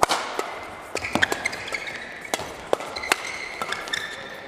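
Badminton doubles rally: a rapid series of sharp racket hits on the shuttlecock, with high squeaks from players' shoes on the court floor.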